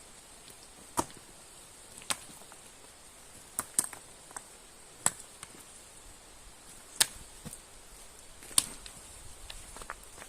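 Seven sharp, short knocks or snaps at irregular intervals over the steady rush of a river.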